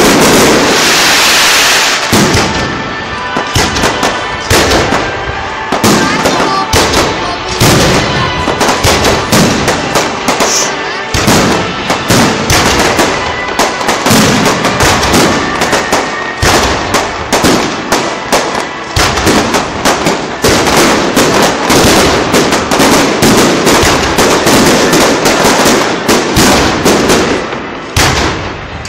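Fireworks display: aerial shells bursting in a rapid, continuous barrage of loud bangs and crackles. A dense crackling hiss fills the first two seconds before the separate bangs take over.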